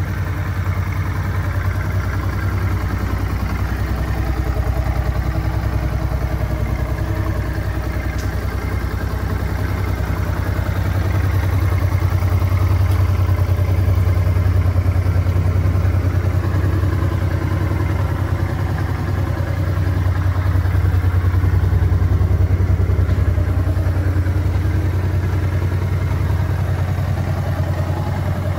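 Honda NT700V Deauville's 680 cc V-twin engine idling steadily.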